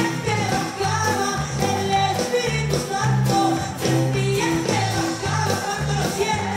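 Live praise song: a woman sings into a microphone over a band of electric bass, acoustic guitar and drum kit, with a steady upbeat beat.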